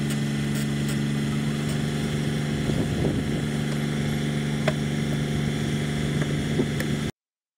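A heavy vehicle engine running steadily under load as it hauls an overturned tank by a steel cable, with a few faint clicks over the drone. The sound cuts off abruptly about seven seconds in.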